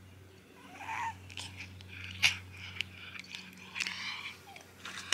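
A domestic cat meowing a few short times, mixed with sharp clicks, the loudest a little past two seconds in.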